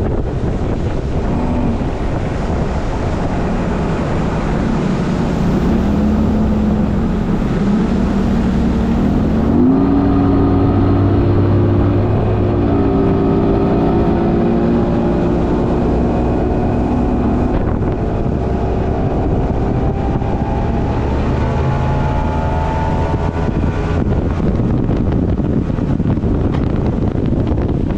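Two-stroke outboard motor driving a speedboat under way, with heavy wind buffeting the microphone. The engine's pitch climbs about ten seconds in as it speeds up, and climbs again later on.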